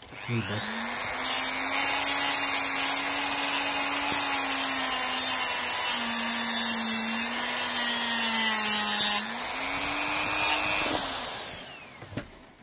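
Small high-speed rotary tool spinning up and grinding the edge of a battery cell clean, its motor pitch sagging slightly under the load. About nine seconds in the grinding stops and the tool runs free at a higher pitch, then winds down near the end.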